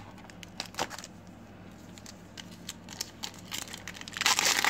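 Foil wrapper of a trading-card pack: light clicks and rustles as the pack is taken from the box. Near the end the wrapper is torn open with a loud crinkling rip lasting about a second.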